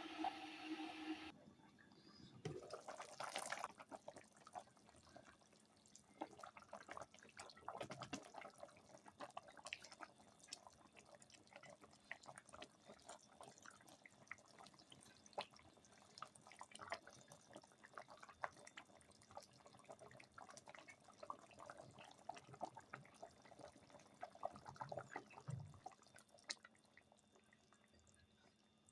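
Faint, irregular small pops and ticks of a watery curry bubbling in a cooking pot.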